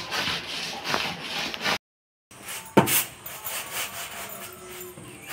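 Roasted mung beans being rubbed by hand against a cloth sack to hull them for dal, a coarse scrubbing in strokes about twice a second. After a brief break, a sharp knock, then quieter scraping of the grains in a winnowing tray.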